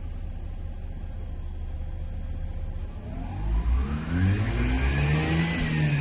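Mazda RX-8's two-rotor Renesis rotary engine idling steadily, then revved up from about three seconds in, the pitch climbing and starting to fall back near the end. The engine is running smoothly again after being cleared of a flood.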